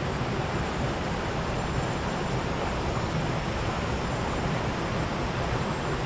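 Steady rushing of creek water flowing over rocks.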